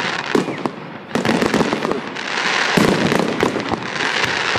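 Fireworks going off: a run of sharp bangs from aerial shells bursting overhead, with crackling between the bangs.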